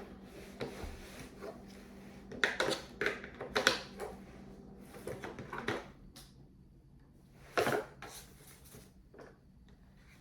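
Small hard objects being handled, giving a scatter of clicks, knocks and light clatter, loudest about three quarters of the way through, over a faint steady low hum.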